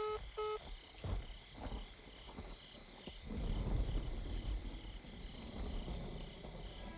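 Crickets chirping steadily, about two to three chirps a second, over a low rumble. Short electronic phone beeps sound in the first half second.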